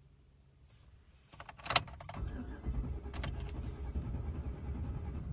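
A few clicks and one sharp knock, then a low, continuous mechanical rumble that starts about two seconds in.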